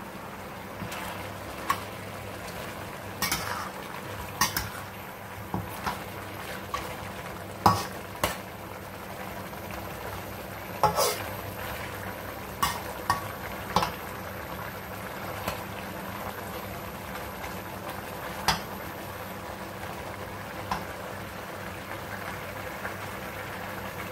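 A cooking utensil stirring pork adobo in a pan, with irregular sharp clinks and scrapes against the metal, over a steady sizzle and a low hum.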